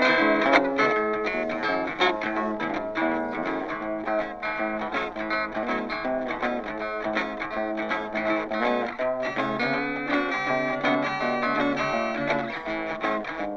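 Background music led by guitar, with plucked and strummed notes at a steady pace.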